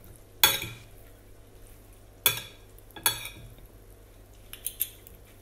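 Metal fork and spoon clinking and scraping against a plate while scooping salad: several sharp clinks, then a few lighter taps near the end.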